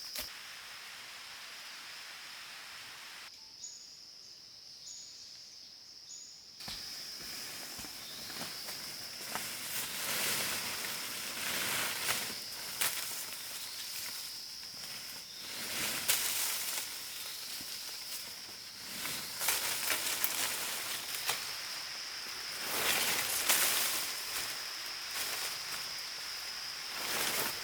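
Forest ambience: a steady high insect drone, with rustling and crackling of leaves and undergrowth that swells and fades repeatedly from about a third of the way in. A short quieter stretch early on holds three brief high chirps.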